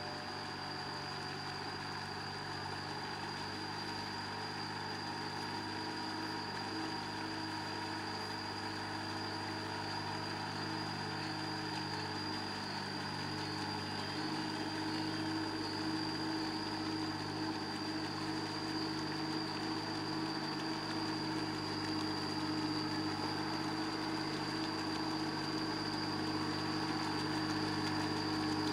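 Kubota L3408 tractor's diesel engine running steadily while it drags cage wheels and a levelling board through a flooded paddy, growing gradually louder as it comes closer.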